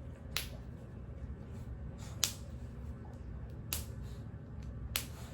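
Four short, sharp clicks about a second or two apart, over a low steady hum.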